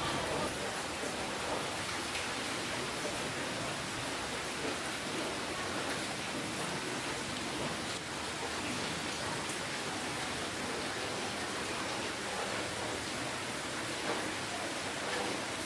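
Steady rainfall: an even hiss of rain with faint individual drop ticks scattered through it.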